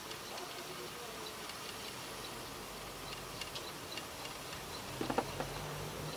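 3D-printed camera slider's drive running, a faint buzz with scattered light ticks as the slider carries the phone slowly along. About five seconds in there is a short run of louder clicks, and a low steady hum starts.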